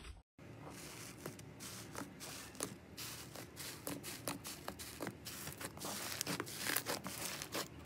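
Hands pressing and squeezing bubbly rainbow foam slime in a tray: a steady crackly hiss with many small irregular pops and clicks.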